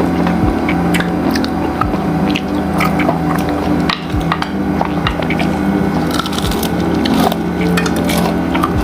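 Fried chicken being bitten and chewed close to the microphone: crisp crunches and wet, squishy mouth sounds, over a steady low drone of sustained tones.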